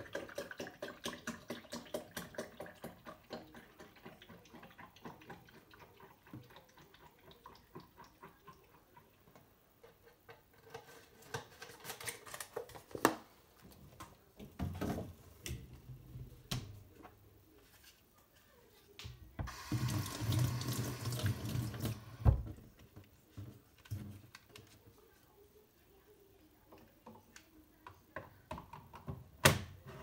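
Water trickling and dripping in a Nespresso Lattissima Pro coffee machine, the machine's water leak. Rapid drips fade over the first few seconds, then scattered clicks follow, with a brief louder rush over a low hum about twenty seconds in.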